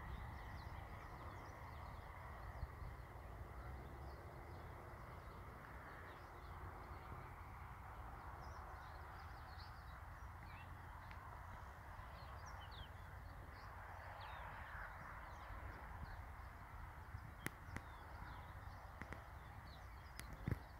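Faint birds chirping and calling across the field, many short notes, over a low wind rumble on the microphone. A few sharp clicks come near the end.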